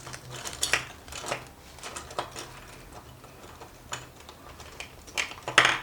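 Small stationery items and packaging being handled and rummaged through: scattered light clicks and rustles, loudest just before the end.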